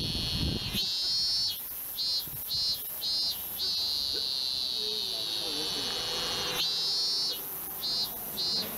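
Shrill insect chirring, high-pitched, in long continuous stretches that break into quick pulsed chirps about three a second, with a faint wavering tone underneath near the middle.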